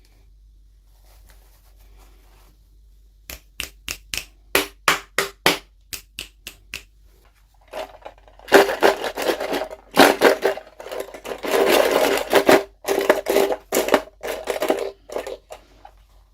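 Packaging being handled and opened: after a quiet start comes a quick run of about a dozen sharp clicks, then a longer stretch of dense crackling and scraping.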